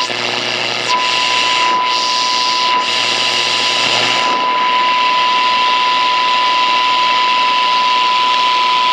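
Sanyo Campanetta 7-band radio's speaker playing a steady 1 kHz test tone from a signal generator, received on the 10 MHz shortwave band over a loud hiss. The tone drops out for about the first second, and a low hum sits under it for the first few seconds.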